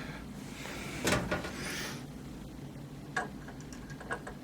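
Parts of a 3D printer kit being handled during assembly: a brief scrape and rustle about a second in, then a sharp click and a few light clicks of parts and screws being fitted.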